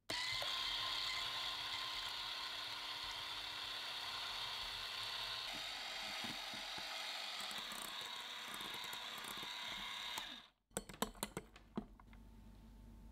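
Electric hand mixer running steadily, its twin wire beaters whipping heavy cream and mascarpone in a glass bowl for Chantilly cream. It cuts off about ten seconds in, followed by a few light clicks.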